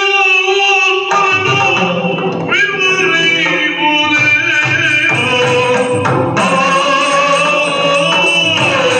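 Yakshagana vocal music: a sung melodic line over a steady drone, with maddale barrel drums joining in about a second in and keeping up a rhythm under the voice.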